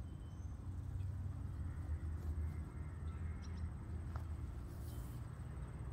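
Quiet outdoor background: a steady low rumble with a few faint ticks and brief high chirps.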